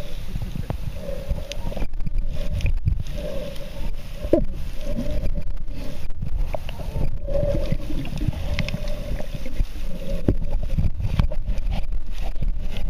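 Muffled underwater sound from a camera held just below the surface: a low rumble and sloshing of water with scattered clicks and bubbling, and a hum that swells and fades every second or two.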